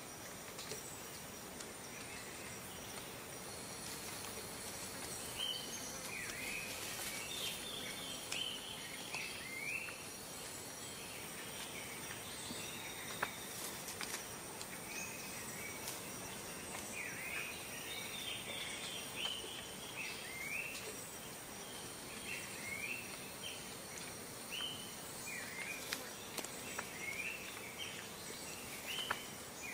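Tropical rainforest ambience: birds call over and over in short, falling chirps, over a steady, high drone of insects.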